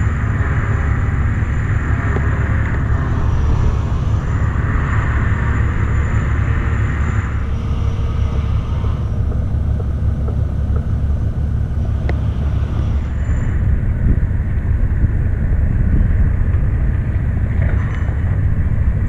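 Steady low rumble of wind buffeting the camera microphone, with stretches of brighter hiss over it.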